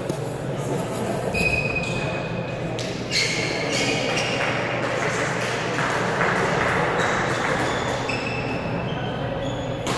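Sports-hall hubbub: several short, high squeaks of court shoes on the wooden gym floor over a murmur of distant voices.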